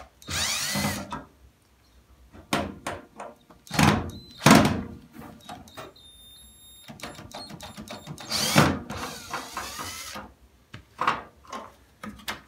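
Cordless drill-driver backing out screws from a washing machine's plastic kick panel, its motor whining up in two short runs, one just after the start and a longer one near the two-thirds mark. Between the runs come clicks and a couple of sharp knocks against the plastic panel.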